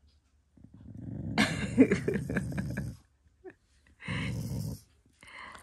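Black Shiba Inu growling: one long growl of about two seconds that builds and turns rougher, then a shorter growl about four seconds in. It is the dog's affectionate, demanding growl, not an angry one.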